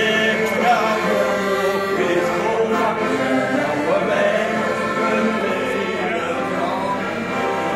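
A group of men singing together, accompanied by an accordion.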